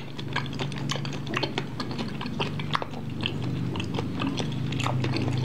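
Close-miked wet chewing of soft, sticky cireng (tapioca fritter) in spicy sauce: many small irregular mouth clicks and smacks, with a low steady hum underneath.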